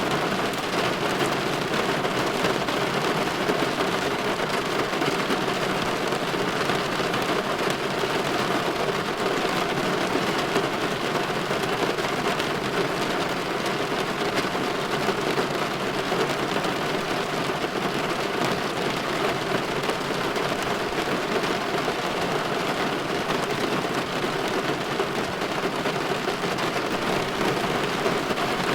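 Steady rain falling on window glass: an even, dense hiss of many small drops that does not let up.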